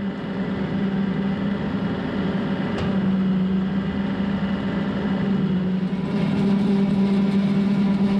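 John Deere 2038R compact tractor's three-cylinder diesel running steadily under load, driving a Frontier RC2072 rotary cutter (bush hog) through tall grass and weeds. A steady drone that gets a little louder about three seconds in.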